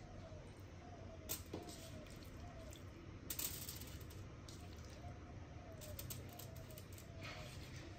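Aluminium foil crinkling and rustling faintly under a hand as pieces of marinated pork are set down on a foil-lined baking tray, with small scattered crackles and a denser rustle about three and a half seconds in.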